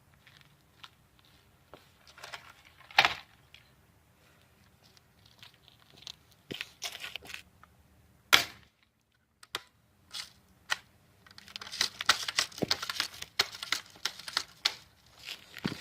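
Handling and tearing noises: scattered clicks and knocks, with two sharp louder hits about 3 and 8 seconds in. The sound drops out briefly, then a stretch of dense crackling and tearing runs for about four seconds.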